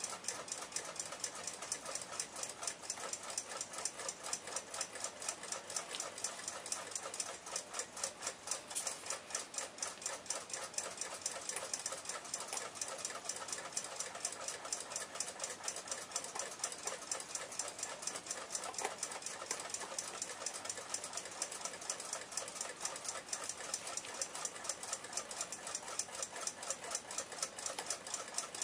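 Pin-lever escapement of a 1906 Western Clock Company alarm clock movement ticking rapidly and evenly, several ticks a second, with its balance wheel swinging.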